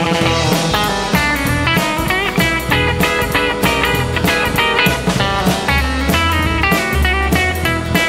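Background music: a rock tune led by guitar, with bending notes over a steady drum beat.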